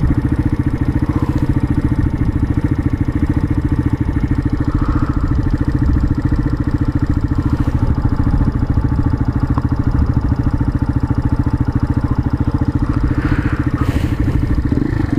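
Keeway 125 cc road motorcycle's engine running at low, steady revs with a fast, even firing beat while it rides slowly over soft, rutted field ground.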